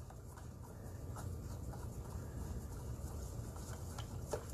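Small hand screwdriver turning a screw into the plastic housing of an iRobot Braava Jet M6 mopping robot: faint, irregular small clicks, with a slightly louder one near the end.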